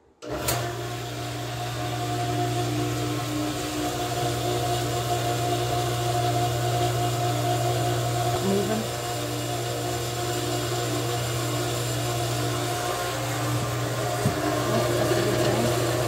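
Electric jet pump on a pressure tank switched on: the motor starts abruptly a moment in and runs with a steady hum.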